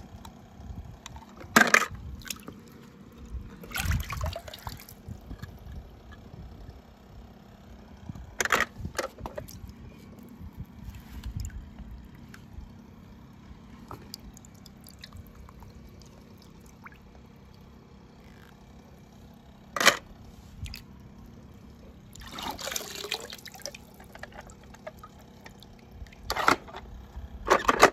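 Small toy cars splashing into water several times, with trickling and dripping water between the splashes.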